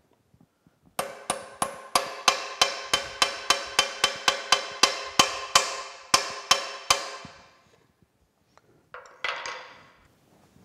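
Hammer striking a steel roll pin into the hub of a machine lever handle, a run of about nineteen ringing metal-on-metal blows at roughly three a second. After a pause, a brief clatter of a few more taps comes near the end.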